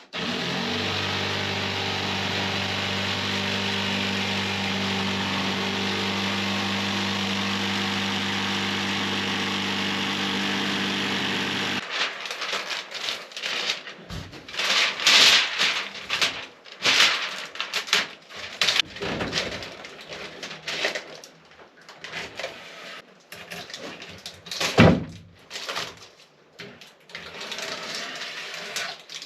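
An electric power tool running steadily on a piece of old wood, then stopping abruptly about twelve seconds in. Irregular knocks and clatter of the wood and tools being handled follow, with one sharp knock near the end.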